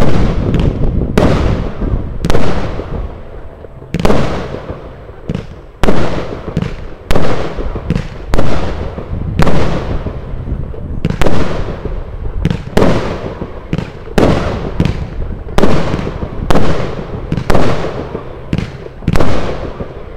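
Gao Happy Flower consumer fireworks battery firing its shots, a sharp bang roughly every second with a short decaying tail after each.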